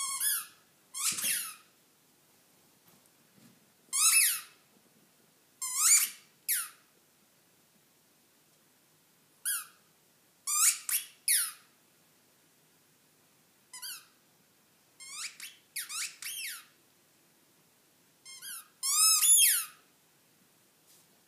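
Squeaker in a dog's new tennis-style ball being chewed, giving loud, high-pitched squeaks in short clusters of one to three, separated by pauses of a second or more.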